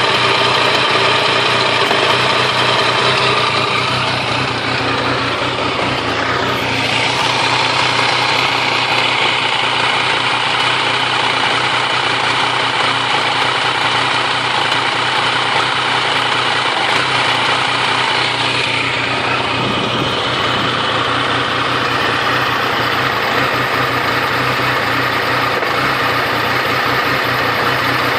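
Triumph Tiger 885i motorcycle's fuel-injected three-cylinder engine idling roughly, the idle the owner says hiccups sporadically and sometimes stalls. The sound shifts briefly about six seconds in and again around nineteen seconds.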